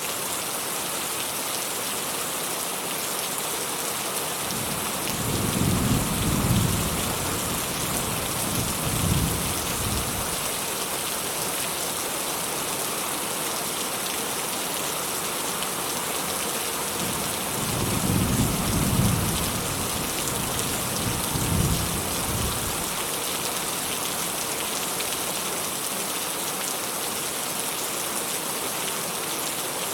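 Steady rain falling, with distant thunder rumbling low twice, about five seconds in and again near the middle, each rumble swelling twice before it fades back under the rain.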